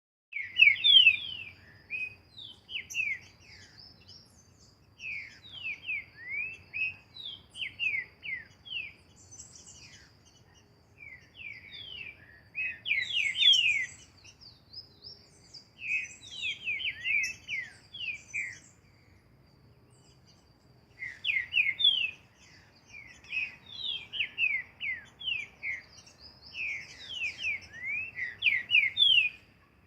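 Green-winged saltator (trinca-ferro) singing: phrases of quick, loud whistled notes, mostly sweeping downward, each phrase lasting a few seconds with short pauses between. A faint steady high tone sits behind the song.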